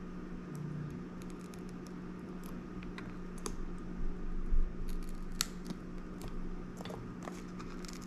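Razor blade scraping and prying between the plastic layers of a membrane keypad, peeling them apart with irregular small scratches and clicks, a few louder ones about four to five seconds in.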